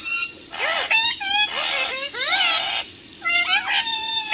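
Indian ringneck parakeets squawking and chattering: a run of short, high, gliding calls, a brief pause about three seconds in, then more calls.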